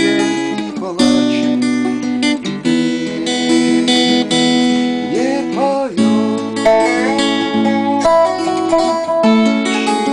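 Acoustic guitar and Dobro resonator slide guitar playing an instrumental improvisation together, with the slide's notes gliding up in pitch about a second in and again around five seconds in.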